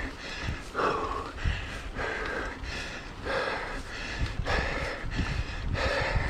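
A cyclist's heavy, rhythmic breathing while pedalling, about three breaths every two seconds, over a steady low rumble.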